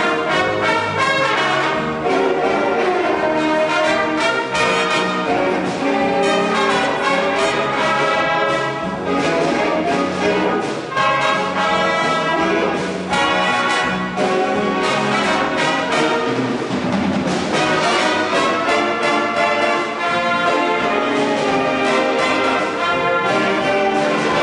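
Big band playing live, its saxophone and brass sections sounding together with the rhythm section.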